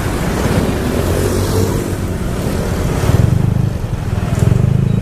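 Road traffic passing close by, a steady rumble of engines and tyres. It swells as heavier vehicles go by, about three seconds in and again near the end.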